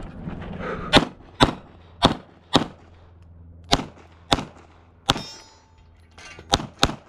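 Glock 45 9mm pistol fired about nine times in quick pairs, each pair's shots about half a second apart, with short pauses between pairs. One shot is followed by a short ringing.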